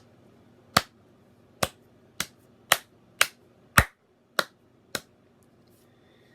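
About eight sharp, loud snaps, roughly two a second and a little unevenly spaced, that stop about five seconds in.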